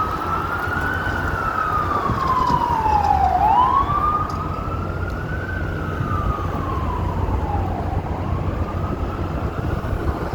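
Emergency vehicle siren in a slow wail, rising and falling in pitch about every four to five seconds, over a steady low rumble of street traffic.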